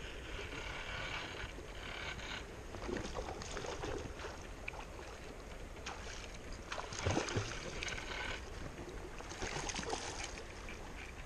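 Steady rush of stream water, with a loud bump about seven seconds in and splashing near the end as a hooked rainbow trout thrashes at the surface.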